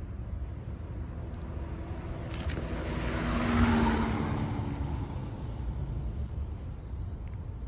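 Motorcycle passing by, its tyre hum louder than its engine, swelling to a peak about three and a half seconds in and then fading away.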